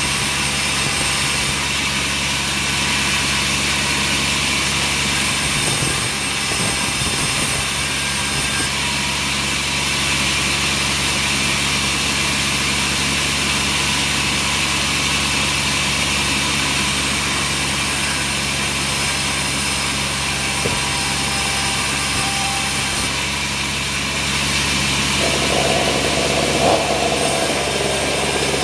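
Sawmill machinery running steadily with a constant low hum; a higher-pitched sound joins in near the end.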